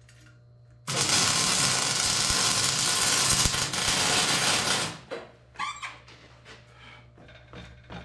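MIG welder's arc laying a bead on a steel pipe: a steady, loud hiss that starts about a second in and cuts off about four seconds later.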